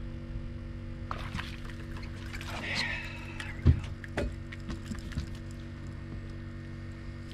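A hooked trout splashing at the surface as it is reeled up and lifted out of the water, with a sharp knock about three and a half seconds in, over a steady low hum.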